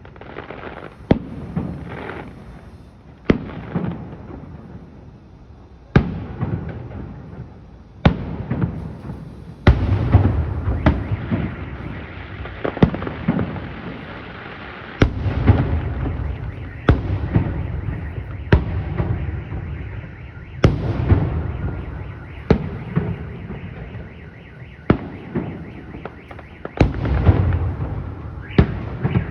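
Fireworks display: aerial shells bursting with sharp bangs every second or two, each followed by crackling and a rumbling echo.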